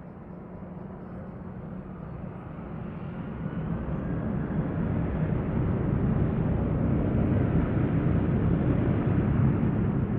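Jet airliner engines: a deep, noisy rumble that grows louder over the first few seconds and then holds steady.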